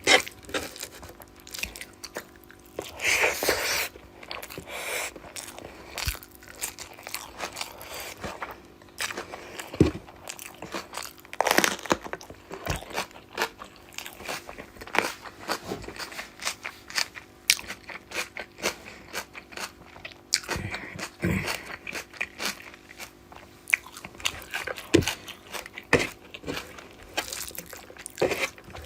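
Close-miked eating: a person chewing and biting, with many small irregular crunches, clicks and mouth smacks.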